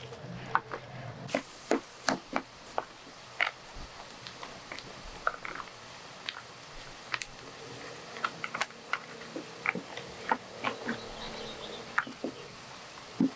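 Irregular light taps and clicks, a few a second and uneven in loudness, from hands working with small hard objects.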